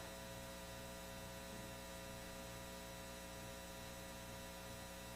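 Low, steady electrical hum with a faint hiss, unchanging throughout.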